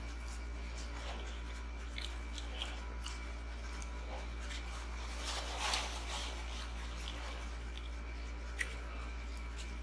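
A person chewing and biting a fried onion ring: faint scattered clicks and crunches, with a louder crunchy burst about five and a half seconds in, over a steady low hum.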